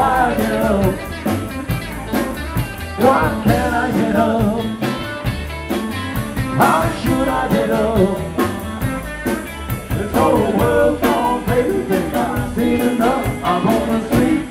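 Live rock and roll band playing: electric guitar and drums under a male lead vocal.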